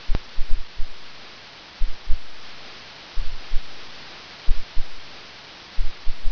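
Computer keyboard typing, heard as short bursts of dull low thuds over a steady hiss.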